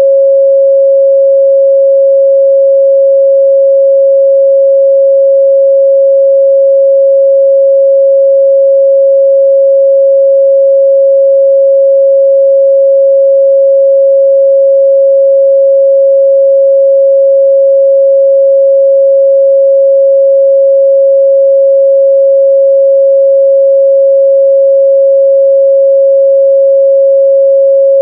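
A steady, loud 547 Hz pure sine-wave test tone, held at one pitch and level throughout.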